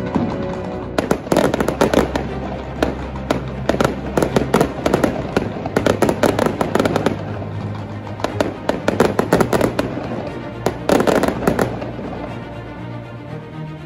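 Aerial fireworks bursting in quick clusters of sharp bangs and crackles, easing off near the end, over background music.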